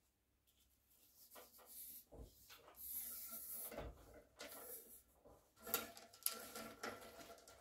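Polishing fleece on a rod being worked through the bore of a rifle barrel: faint, uneven rubbing and scraping, with two sharp knocks about three quarters of the way in.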